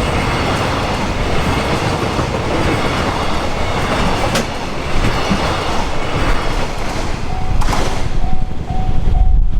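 A freight train passing over a level crossing, its wheels clattering on the rails, the noise dropping away near the end. From about seven seconds in, the crossing's warning bell is heard over it, ringing in a steady repeated beat of about three strokes a second.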